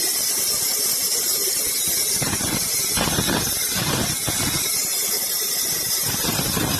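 Sawmill machinery running, with a constant high hiss and irregular lower surges.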